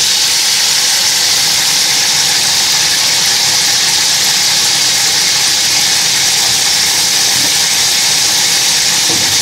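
Chunks of raw meat sizzling in hot oil in a large aluminium pot as they are seared, a loud, steady hiss that starts suddenly as the meat goes in.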